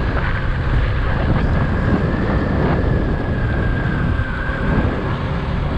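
Wind rushing over the microphone of a motorcycle cruising at road speed, with a steady high-pitched whine running underneath.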